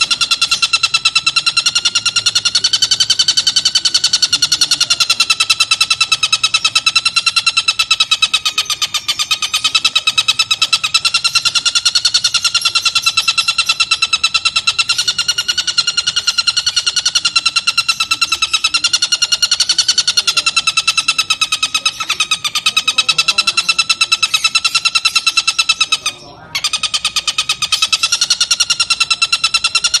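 Oriental dollarbird (tengkek buto) giving a long, unbroken cackling chatter: a harsh call of very rapid pulses that wavers slightly in pitch, with one short break near the end.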